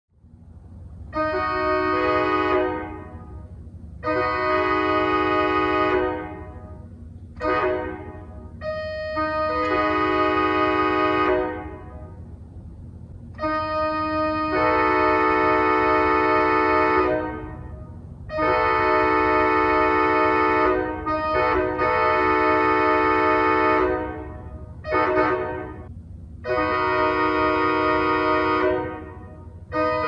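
Pipe organ chords imitating a Nathan K5LA five-chime locomotive air horn, sounded as a series of long and short blasts that ring on in the room after each release. The first four follow the long-long-short-long grade-crossing pattern.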